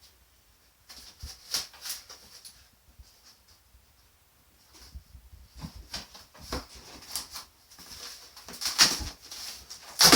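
A cardboard shipping box and its packaging being opened by hand: irregular scraping, tearing and rustling in bursts, beginning about a second in, pausing briefly, then almost continuous from about halfway, loudest near the end.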